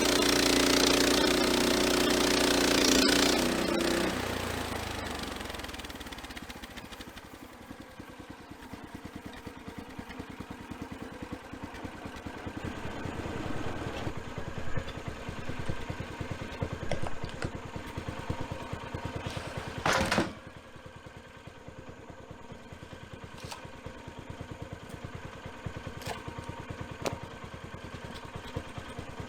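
Easy Boardwalk Jr. band sawmill running. The blade is under load in a cut for the first three or four seconds, then the sound dies away to the engine idling, broken by a few sharp knocks and a loud clatter about twenty seconds in.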